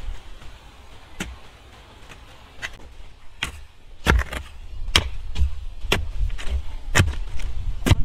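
Hoe blades striking dry, stony soil: sharp chopping strikes at irregular intervals, a few in the first half, then about one a second or faster from about halfway through.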